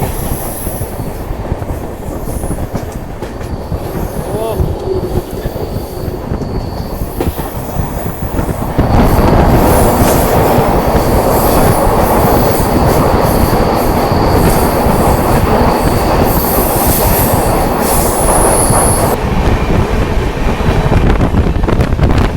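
Hirakhand Express running, heard from inside a coach in a tunnel: a continuous rumble and rattle of wheels on the rails with a high wheel squeal over it. The din jumps much louder about nine seconds in.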